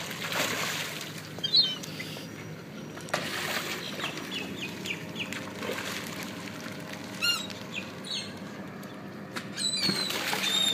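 Fish splashing and thrashing at the water surface as they strike at tossed bait shrimp. Birds call several times over it, short high chirps and a falling cry.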